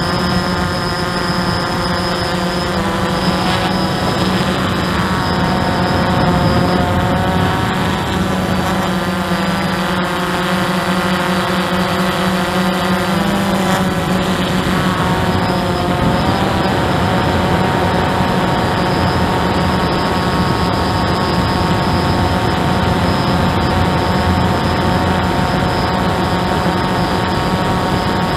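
Hubsan 109 quadcopter's motors and propellers whining steadily, heard from its onboard camera. The several tones shift in pitch now and then as the motors speed up and slow down.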